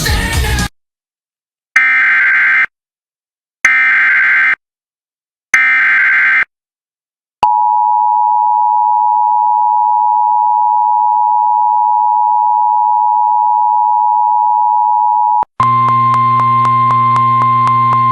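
Emergency Alert System broadcast tones. Three short bursts of screechy digital SAME header data about two seconds apart are followed by the two-tone attention signal, held steady for about eight seconds. After that comes a single steady tone over a buzzing hum, with music ending just before the bursts.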